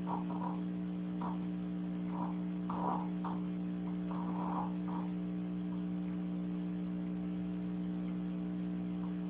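A sleeping pet snoring: short, soft, irregular snores through about the first five seconds, then only a steady electrical hum for the rest.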